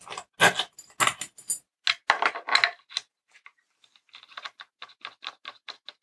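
Small metal screws, nuts and washers clinking and rattling as a stepper motor bracket is fitted to the board by hand: a cluster of clicks and rattles in the first three seconds, then a quicker run of lighter ticks near the end as a screwdriver is worked on the bracket.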